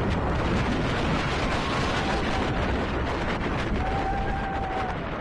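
Wind rushing over the microphone and the rumble of an Arrow suspended roller coaster car in motion, with a faint drawn-out high tone about four seconds in.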